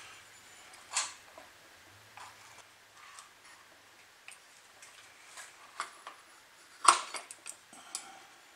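Scattered light metal clicks and clinks as a metal housing is handled and seated onto the clutch housing of a small outboard motor, with one sharper knock about seven seconds in.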